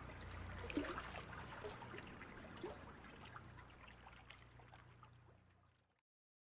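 Faint water splashing and trickling from a sprint canoe and its single-bladed paddle cutting through choppy water, a few splashes about a second apart over a low steady rumble. The sound fades out to silence about six seconds in.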